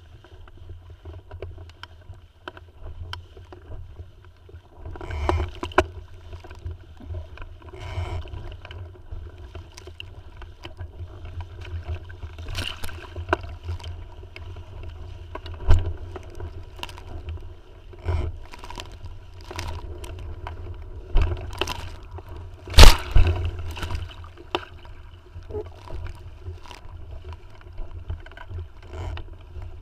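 Water splashing and gurgling against the hull of a Tiwal 3 inflatable sailing dinghy under sail, over a steady low wind rumble on the microphone. Scattered sharp slaps run through it, the loudest about 23 seconds in.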